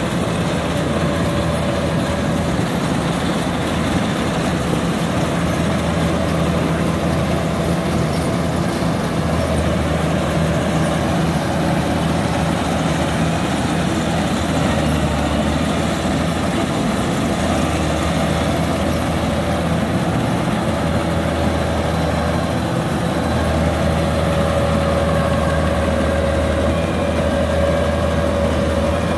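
Kubota DC-93 rice combine harvester's diesel engine running steadily under load as the machine crawls through deep mud, a continuous low drone that swells slightly at times.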